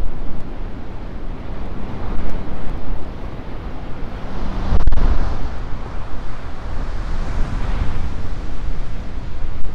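Heavy ocean surf crashing and churning against a rocky headland, a loud steady rush with a low rumble, swelling to its loudest about five seconds in as a big wave breaks. Wind buffets the microphone throughout.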